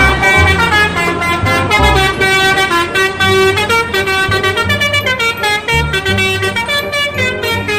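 Telolet bus horn, a multi-tone musical air horn, playing a quick melody of stepping tones, with deep bass notes underneath.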